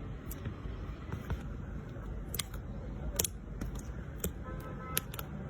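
Slime being handled, giving sharp irregular clicks and snaps, about a dozen, over a low steady rumble.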